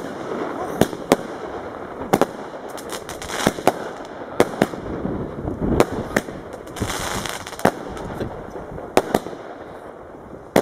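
Monster Madness multi-shot firework firing, a string of sharp bangs about one or two a second as shots launch and burst, with a hissing noise between them.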